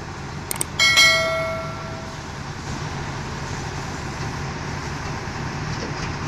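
An L&T Komatsu excavator's diesel engine runs steadily. About half a second in come two quick clicks, then a bright bell-like ding that rings out for about a second, the sound of the subscribe-button animation.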